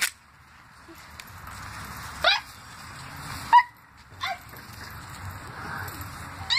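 A small dog yapping: four short, high-pitched yaps, spaced out with pauses between them.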